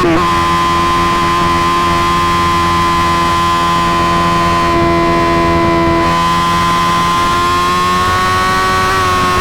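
Suzuki GSX-R1000's inline-four engine through an M4 GP slip-on exhaust, running at a steady, constant pitch, with a brief dip in pitch right at the start and another near the end.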